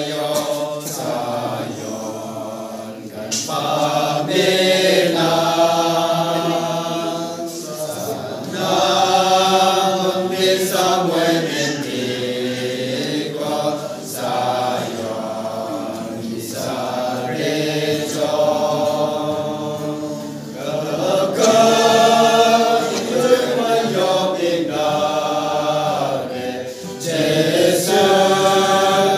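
A small mixed group, mostly men's voices with one woman's, singing a hymn together, phrase by phrase with short breaks between the lines.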